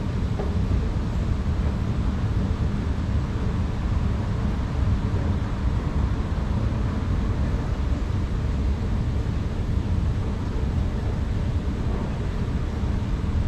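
Long MRT station escalator running: a steady low rumble.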